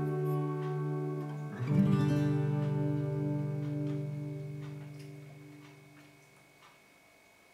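Background music on acoustic guitar: a chord is struck about a second and a half in and rings on, fading out to near silence over the last couple of seconds.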